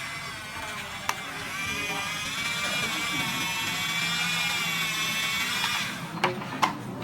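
A small electric motor whining steadily, its pitch wavering slightly; it stops about six seconds in, followed by a few clicks.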